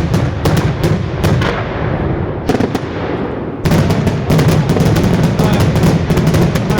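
Daytime fireworks going off in a rapid string of sharp bangs, several a second. The bangs thin out about two seconds in, then come back as a denser volley about three and a half seconds in.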